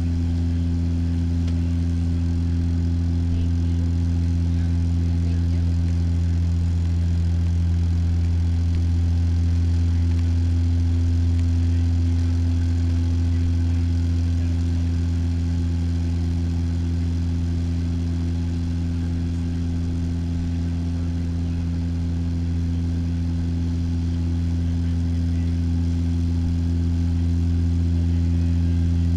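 Steady drone of a turboprop airliner's engines and propellers heard inside the cabin: a deep, even hum with a few steady tones, swelling and easing only slightly.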